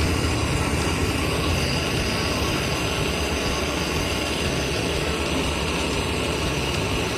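Steady machine running noise: a low hum with a hiss over it, even throughout with no breaks.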